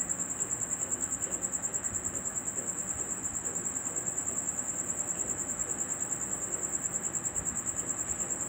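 Cricket chirping: a high, steady trill pulsing rapidly, about nine pulses a second.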